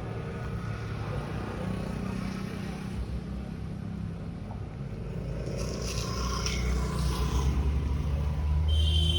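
Steady low engine rumble of roadside traffic, growing louder near the end as a vehicle comes close.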